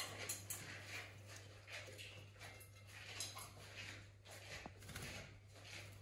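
Faint, irregular scratching and rustling from a pet animal moving and pawing about on a fabric-covered sill, over a steady low hum.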